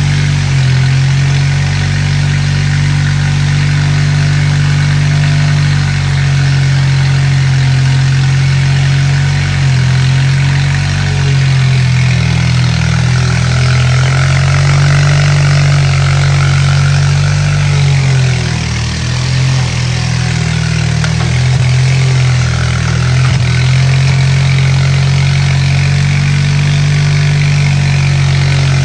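Bobcat 732 skid steer's carbureted engine running steadily, its pitch shifting slightly a few times.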